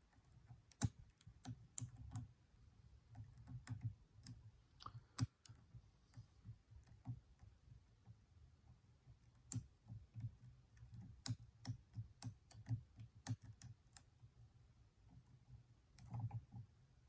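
Picking a Stanley padlock's cylinder: lock pick and tension tool making irregular small clicks and taps against the pins, over a faint low rumble of handling.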